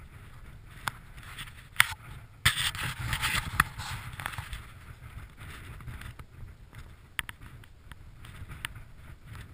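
Wind rumbling on a helmet-mounted action camera's microphone, with scattered sharp clicks and a louder scraping rustle from about two and a half to four seconds in.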